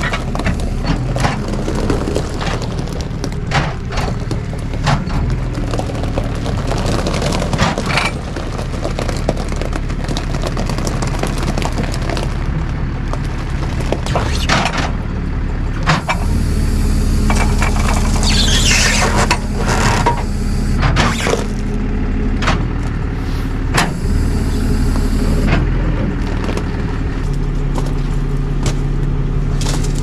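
A tow truck's engine runs steadily while metal clanks and knocks come from hooking a car to its wheel-lift. About halfway through the running gets louder and steadier, with a brief high whine, as the wheel-lift is worked.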